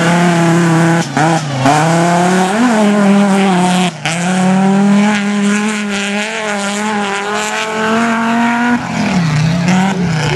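Autocross race car's engine running hard on a dirt track. It revs up and down several times, then holds at steady high revs for about five seconds, dropping briefly near the end.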